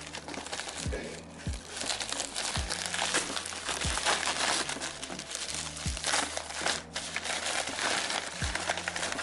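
Background music with deep bass-drum hits that drop in pitch and held bass notes, under a dense, steady crackling and rustling noise.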